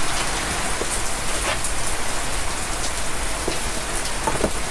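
Heavy rain pounding down on a shop roof: a steady hiss with a few faint knocks mixed in.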